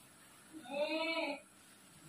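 One drawn-out, meow-like vocal cry from a person in another room, a single 'meh' that rises then falls in pitch.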